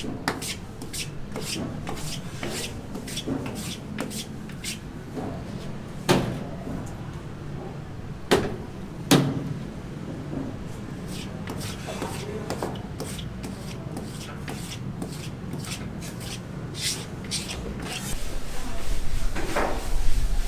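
Rapid, regular tapping, about two or three strokes a second, with three louder knocks in the middle. Under it runs a steady low hum, which grows louder near the end.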